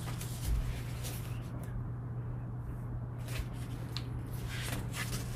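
Quiet room tone: a steady low hum with a few faint, soft clicks and rustles.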